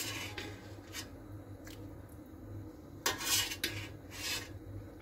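Spoon scraping and rubbing against a large steel pot of broth: a few short scrapes, the longest about three seconds in, over a low steady hum.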